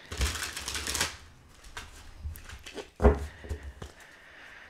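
Tarot cards being shuffled by hand: a papery rustle for about the first second, then light clicks and a thump about three seconds in.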